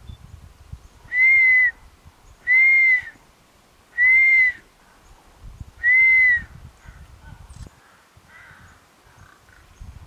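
Four loud, clear whistled notes, each about half a second long, pitched high and arching slightly up then down, spaced a second or two apart, the last about six seconds in.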